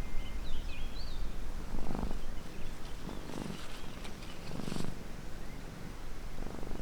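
Domestic cat purring close to the microphone, in slow rising and falling swells. Faint bird chirps about half a second in.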